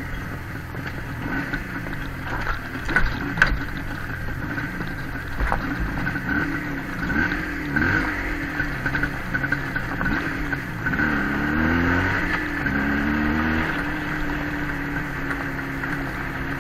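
Motorcycle engine running under way, its pitch rising and falling over and over as the throttle is opened and closed, with a few sharp knocks about three seconds in. Over the last few seconds it settles into a steady note.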